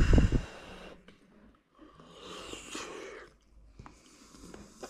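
A man chewing a mouthful of penne pasta and breathing through his nose, with a loud low thump on the microphone right at the start and a long breath out about two seconds in.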